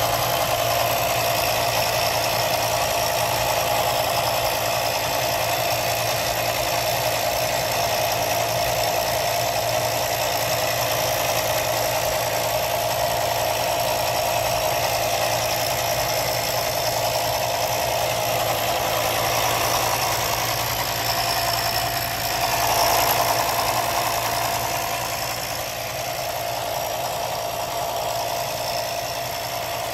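Smoke machine running steadily, its pump pushing smoke into the engine's intake to reveal a vacuum leak. A constant mechanical hum with a held tone, swelling briefly about two-thirds through.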